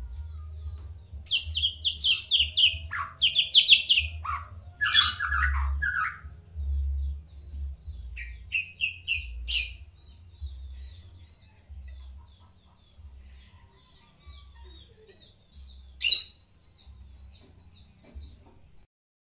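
White-rumped shama (murai batu, Medan type) singing: loud, fast runs of repeated high notes for the first six seconds and again around eight to ten seconds, then a faint string of quick repeated notes broken by one sharp loud note about sixteen seconds in. It is a varied song that the title calls full of isian, meaning calls mimicked from other birds.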